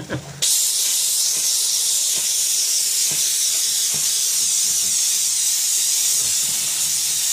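Kärcher SC4 steam cleaner's hand nozzle with brush attachment jetting steam: a steady, loud hiss that starts again about half a second in after a short break, with a few faint knocks of the brush against the bin.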